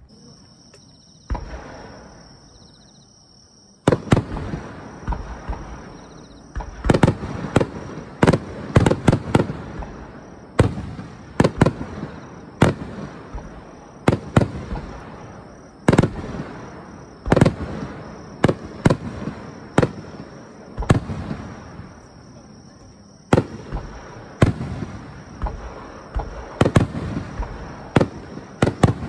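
Aerial firework shells bursting. After a quieter lull with a single pop about a second in, a dense run of sharp bangs begins about four seconds in and keeps on, several a second at times, each followed by a rolling echo.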